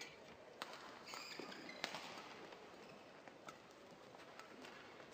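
Faint hubbub of a large indoor sports hall, with a few sharp isolated clicks or taps, the clearest about half a second and two seconds in.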